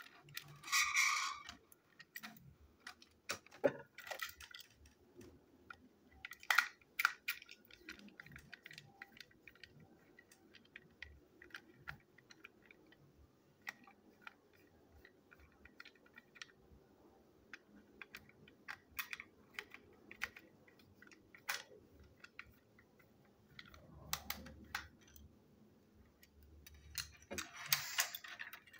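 Plastic toy train engine being handled and taken apart with a screwdriver on a tabletop: scattered small clicks and taps of plastic parts, with a brief rubbing scrape near the start and again near the end.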